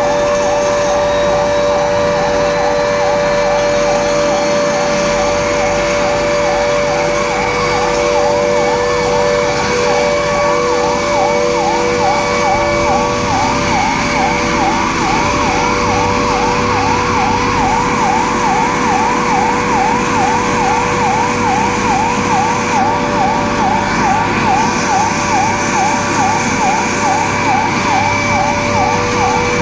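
Emergency vehicle siren sounding in a fast yelp, rising and falling about three times a second, over a steady held tone.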